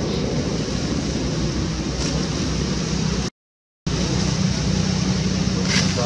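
Steady outdoor background roar with no clear single source, broken by about half a second of dead silence a little over three seconds in, where the recording is cut.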